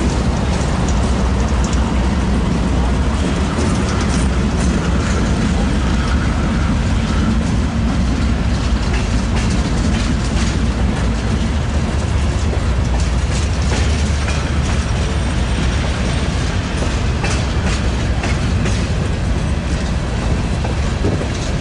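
A freight train passing close by: the last Norfolk Southern GE diesel locomotive rumbles past, then a long string of loaded tank cars rolls by. There is a steady heavy rumble, with the wheels clicking and clacking over the rail joints.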